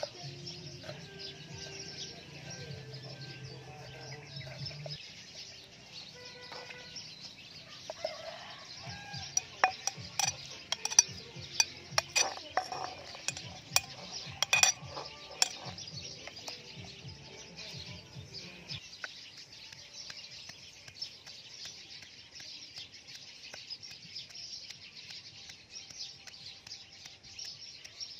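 Food-preparation clicks and clatters: a knife on a wooden chopping board and ingredients dropped into a stone mortar, with a cluster of loud sharp knocks in the middle, over a steady high hiss.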